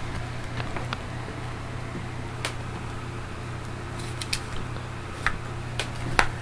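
A beagle gnawing a knotted chew bone: irregular sharp clicks and cracks of teeth on the bone, the loudest near the end, over a steady low hum.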